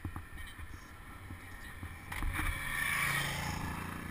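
Wind rushing over an action camera's microphone with road rumble from a moving road bicycle, swelling louder about two seconds in and easing off toward the end.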